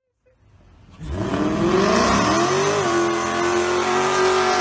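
Dodge Charger's engine revving up, then held at high, steady revs while its rear tyres spin in a burnout, with a loud hiss of tyre noise over the engine. The sound starts faint and jumps up about a second in. The pitch rises for the next two seconds, then holds steady.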